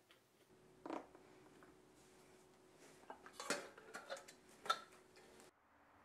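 Faint clinks and taps of a cup and its lid being handled. There is a light knock about a second in and a cluster of small taps from about three and a half to five seconds, over a faint steady hum.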